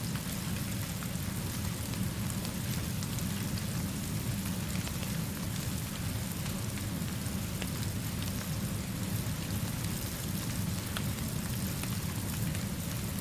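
Steady rainfall: an even hiss over a deep, steady low rumble, with scattered faint ticks of single drops.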